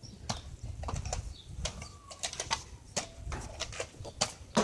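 Irregular clicks, knocks and rustling from the camera being handled and carried, with footsteps, over a low rumble.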